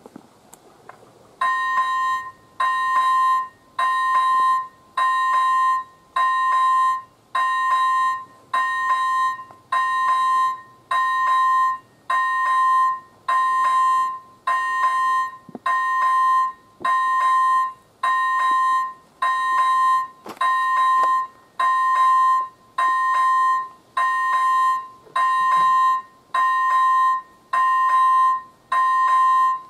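Electronic warning bell of an AŽD 97 railway level crossing switching on about a second and a half in and ringing steadily, one loud ding about every second. It is the crossing's warning that a train is approaching.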